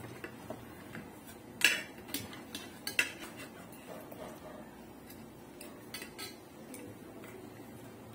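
Spoons clinking and scraping against plates while eating rice and chicken: scattered light clicks, the loudest about a second and a half and three seconds in, with another cluster about six seconds in.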